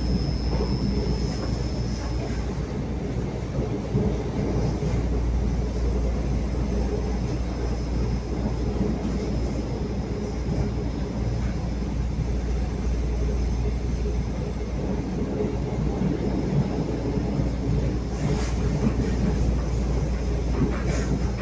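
Local passenger train running, a steady low rumble of wheels on rails, with a faint high whine that fades out a couple of seconds in and a few brief higher scraping sounds near the end.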